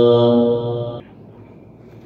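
An unaccompanied man's voice chanting an Arabic nasheed, holding one long note that stops abruptly about a second in. Only faint background hiss follows.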